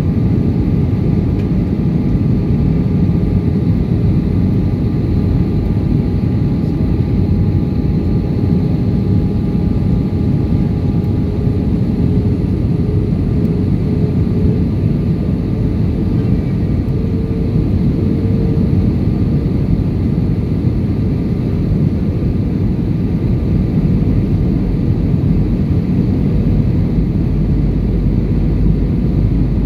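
Steady cabin roar of an Airbus A320-200 on descent, heard from a window seat by the wing: engine and airflow noise, with a faint engine tone that climbs slightly in pitch about halfway through.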